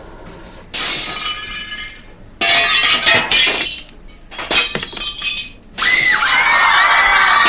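Glass breaking three times in quick succession, each crash followed by ringing, tinkling shards. Near the end a loud, steady sound with a wavering pitch begins.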